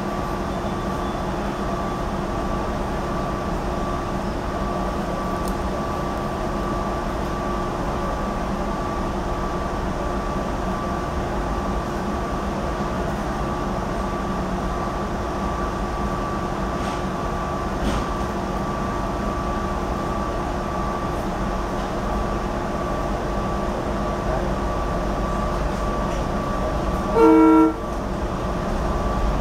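Inside a GE Silverliner IV electric commuter railcar standing at a station and then starting off: a steady hum from the car's equipment with a few constant tones. Near the end comes one short, loud blast of the car's Leslie RS2M horn.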